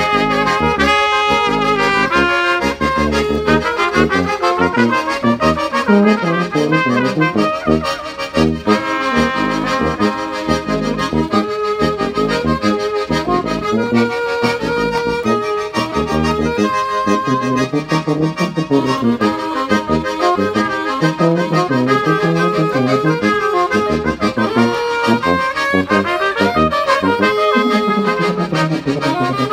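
A small ensemble of tuba, trumpet, saxophone and accordion playing a tune together.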